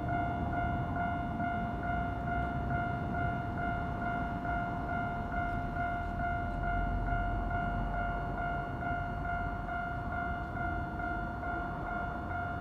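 Japanese level-crossing warning bell ringing in rapid, steady repeats, over the low rumble of a Keikyu Line train running past the crossing.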